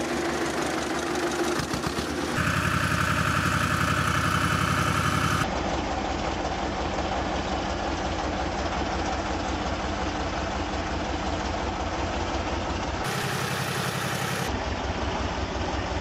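Road roller's engine running steadily with an even chugging pulse. Its tone shifts abruptly a few times.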